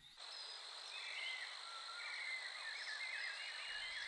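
Forest animal chorus: a steady high-pitched insect drone, joined about a second in by rapid, repeated warbling chirps.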